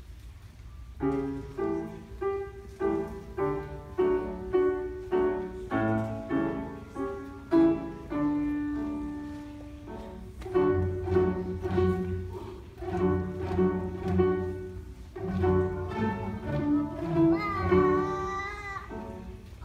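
String ensemble playing: short bowed notes in a steady beat, starting about a second in, with a long held note about halfway through and a wavering high note near the end.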